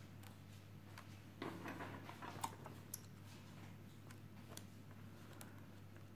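Faint ticks and light rustling of small-part handling: a metal tweezer tool working the touch flex cable inside an opened iPad 2, with a short burst of rustling a second and a half in, over a steady low hum.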